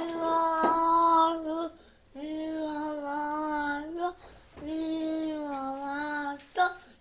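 A young girl singing three long, held phrases, each about two seconds, with short breaks between them.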